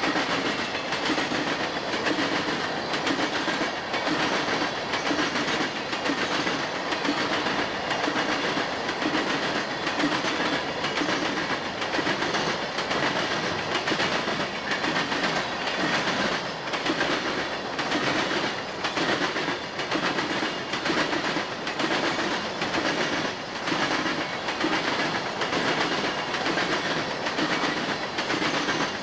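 Florida East Coast Railway freight train of open-top hopper cars rolling past close by: a steady rumble and rattle of the cars, with the regular clickety-clack of wheels passing over rail joints.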